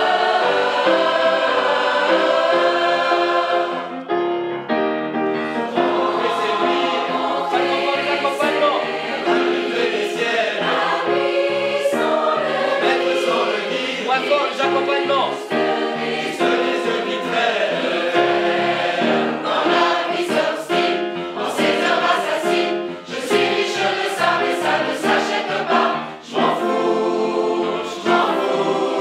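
A large mixed choir of women's and men's voices singing a song together in harmony, accompanied by piano, with short breaks between phrases.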